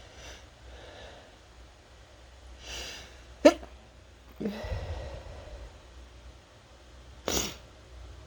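A person's induced wet sneeze about three and a half seconds in, with a sharp inhale just before it and a short vocal aftersound. Near the end comes a loud sniffle.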